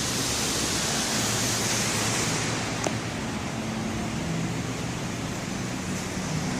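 Steady, even background hiss of a large indoor space, with one sharp click about three seconds in.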